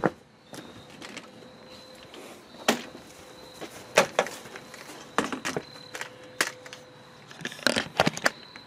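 Footsteps on concrete at a walking pace, about one a second, then a quick cluster of knocks and handling noises near the end, over a faint steady high whine.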